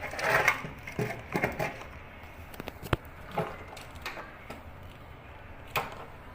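Plastic clicks, knocks and rustling as a microwave door latch assembly is handled, with a sharp click about three seconds in and another near the end.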